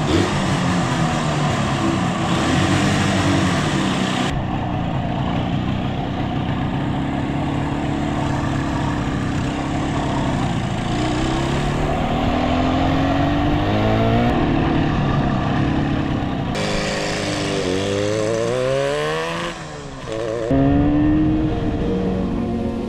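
1972 Yamaha DS7's two-stroke parallel-twin engine running under way, revving up and easing off as it pulls through the gears, its pitch climbing several times. The engine has just been revived after years of sitting, and its clutch plates have just broken free.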